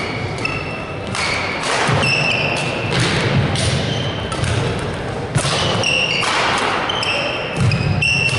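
Badminton rally: rackets striking the shuttlecock in repeated sharp hits, with court shoes squeaking in short high chirps on the wooden floor as the players move.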